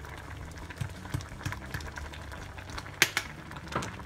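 Water boiling in a stainless steel pot of rice noodles, bubbling steadily, with irregular small clicks and pops and one sharp click about three seconds in.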